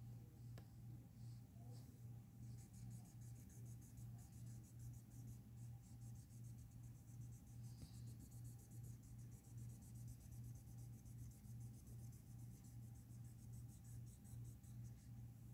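Faint scratching of a felt-tip marker on paper in quick back-and-forth coloring strokes, over a low steady hum.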